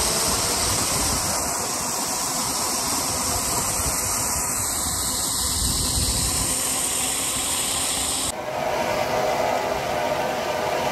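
Steady rush of wind buffeting the microphone as the rider speeds along a zipline cable. The sound changes abruptly about eight seconds in.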